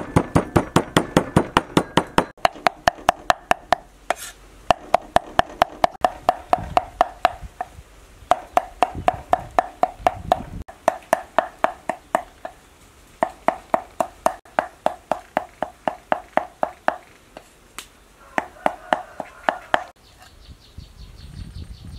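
Cleaver chopping fast on a round wooden chopping board, about six strokes a second in runs of a few seconds with short pauses between. Each stroke is a sharp knock with a slight ring, mincing the food to a paste; the chopping stops near the end.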